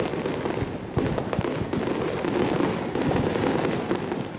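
Aerial fireworks bursting in quick succession: a dense, continuous crackling of pops and bangs, with a sharper bang about a second in.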